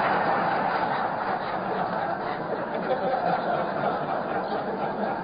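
Audience laughing at a joke, a roomful of people, easing off slightly after the first couple of seconds.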